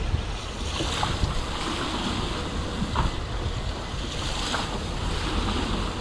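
Water spilling in pulses from the metal spine of a book-shaped stone fountain and washing over its pages, with low wind rumble on the microphone.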